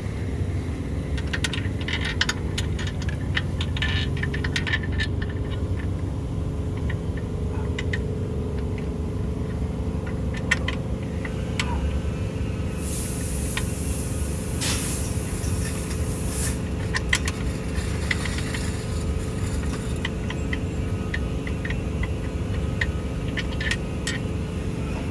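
Fastening the bolts on the underside of a car's engine mount by hand: scattered light clicks and taps of tools and bolts over a steady low shop rumble, with a few seconds of hiss about halfway through.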